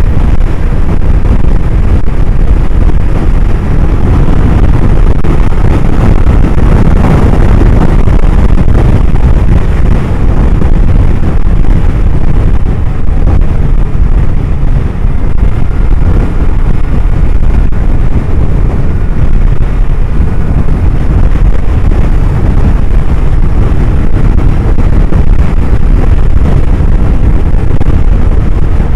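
Suzuki Hayabusa inline-four motorcycle running on the road, its engine mixed with a steady rush of wind over the microphone.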